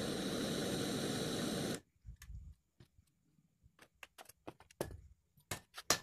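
Gas brazing torch flame giving a steady hiss as it heats the charging-pipe joint on a refrigerator compressor, then cutting off abruptly a little under two seconds in. A few faint clicks and taps follow.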